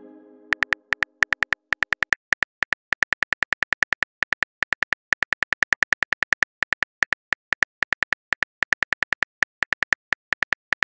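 Phone on-screen keyboard click sound effect, one short click per letter as a text message is typed out, about eight clicks a second with brief pauses. The fading end of a message chime rings out in the first second.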